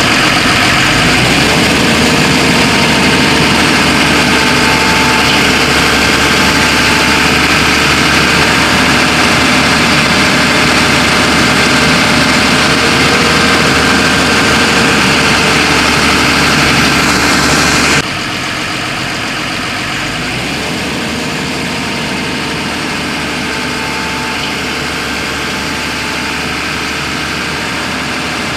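Diesel engine of a JCB 3DX backhoe loader running steadily. About 18 s in the sound suddenly drops and continues quieter.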